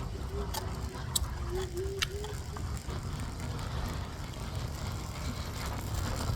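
Evercross H5 hoverboard wheels running with a steady low grinding rumble, the sign of a fault in the wheels. A faint wavering whine sounds over it in the first couple of seconds, along with a few sharp clicks.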